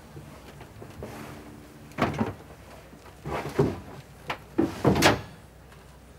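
A metal hatch being handled and slid shut: a series of knocks and clatters starting about two seconds in, the loudest just before the end.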